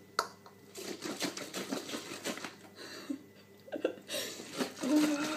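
Plastic pancake-mix shaker bottle being handled and shaken: irregular knocks and taps with no steady rhythm.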